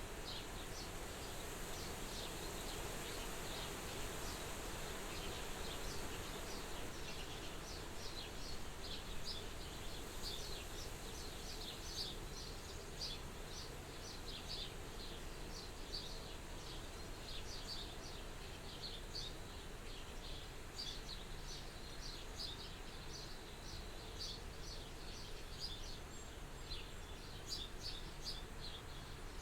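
Soft wind blowing at a farmhouse window, a steady rushing hiss, with many short high chirps scattered through it.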